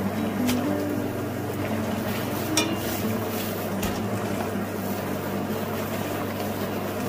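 Water boiling hard in a pan, a steady bubbling over a low hum, with a few light clicks, the clearest about two and a half seconds in.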